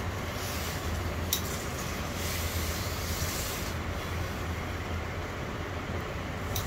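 Professional steam-ironing equipment running with a steady low hum, and a hiss that fades out about four seconds in; a single sharp click comes about a second in.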